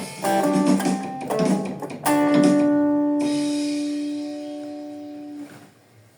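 Guitar playing a quick run of plucked notes, then striking a last note that rings out and slowly fades until it is damped about five and a half seconds in.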